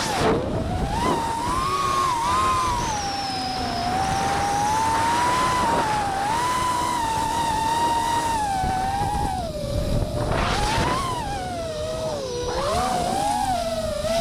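Small FPV drone's electric motors and propellers whining, the pitch rising and falling with throttle changes. Wind buffets the microphone in short gusts, strongest near the start and about ten seconds in.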